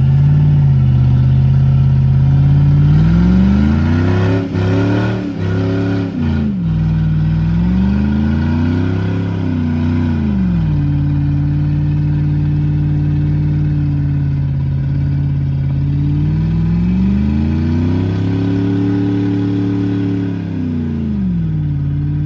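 Truck engine revving up and dropping back to idle three times. There are a few sharp knocks during the first rev.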